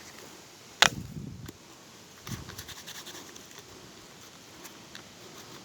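Scratching and rustling of a small crushed metal can being handled and rubbed clean, with one sharp click just under a second in.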